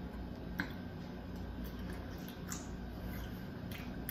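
Faint wet chewing and a few soft mouth clicks of a person eating a forkful of spaghetti squash with meat sauce, over a steady low hum.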